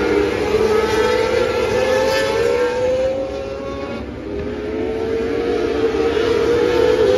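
Several small winged sprint cars racing on a dirt oval, their engines held at high revs in a steady high-pitched drone that slowly rises in pitch. It dips a little about four seconds in, then builds again.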